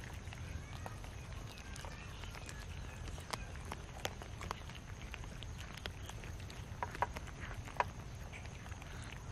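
Several cats eating cooked rice from a metal tray: scattered small clicks and smacks of chewing and lapping, more of them near the end, over a steady low background rumble.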